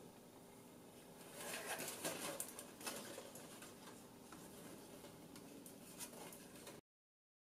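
Faint rustling and small clicks of hands handling the stacked circuit boards of a Javelin missile guidance computer, busiest a second or two in. The sound cuts out to dead silence about seven seconds in.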